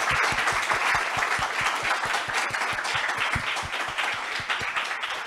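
Audience applauding: dense clapping from many hands that eases off slightly toward the end.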